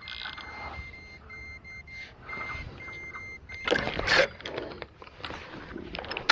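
Electronic bite alarm sending a rapid run of short, high beeps, signalling a fish taking the bait; the beeping stops about three seconds in. About four seconds in comes a brief, loud, noisy burst.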